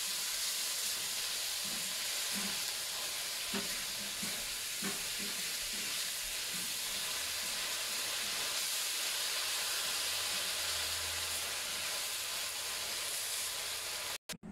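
Asparagus, carrot and anchovies sizzling steadily in a hot wok as they are stir-fried with a silicone spatula, with a few soft scrapes and knocks of the spatula in the first few seconds. The sizzle stops abruptly just before the end.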